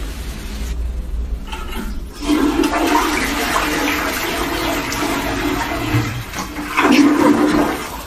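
Rushing water, starting about two seconds in and stopping near the end.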